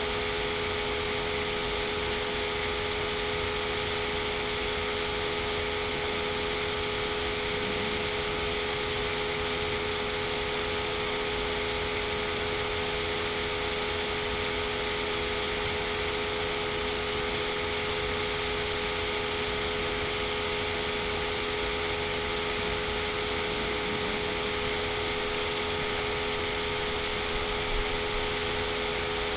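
Steady background hum and hiss with a few fixed tones, unchanging throughout.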